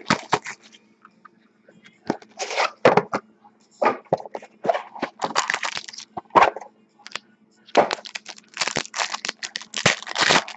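Cardboard card box and sealed pack wrappers being torn open by hand: irregular crackling, ripping and rustling over a faint steady low hum.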